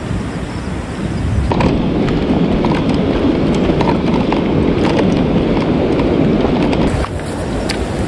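River water rushing with wind buffeting the microphone. The noise grows louder and denser about a second and a half in, with scattered small clicks, and drops back about seven seconds in.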